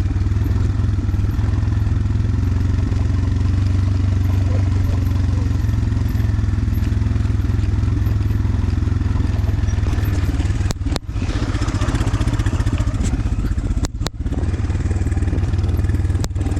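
Motor scooter running while it is ridden down a rough, bumpy road, a steady low engine and road rumble. A few sharp knocks come about eleven and fourteen seconds in.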